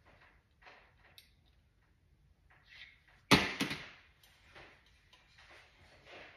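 Scattered light handling noises, short rustles and clicks, with one sharp knock about three seconds in.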